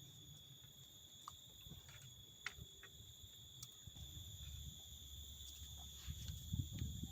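Faint steady high-pitched insect drone, with a few scattered small ticks and a low rumble growing near the end.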